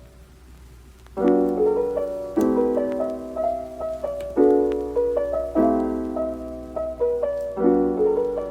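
Background music: a gentle solo piano piece, soft at first, then chords struck every second or two.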